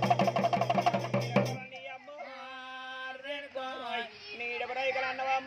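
Fast drum and cymbal beat on a large stick-played barrel drum (dhol), hourglass drum and small hand cymbals, about six strokes a second, cutting off abruptly about a second and a half in. Then a man sings a drawn-out devotional Oggu Katha line with long held, wavering notes.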